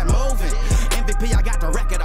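Hip hop track with heavy, booming kick drums about every two-thirds of a second over a deep, sustained bass.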